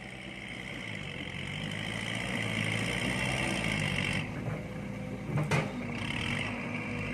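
Excavator's diesel engine running steadily and gradually rising in level as it works, with a single sharp knock about five and a half seconds in.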